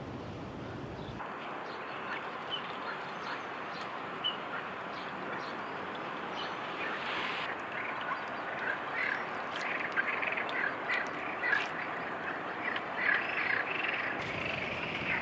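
Lakeside ambience: a steady hiss with bursts of short, rapidly repeated animal calls, growing busier from about eight seconds in.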